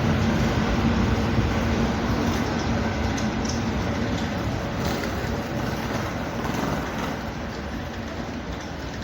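A train passing by: a steady rumble that slowly fades as it moves away, with a low hum dying out in the first couple of seconds.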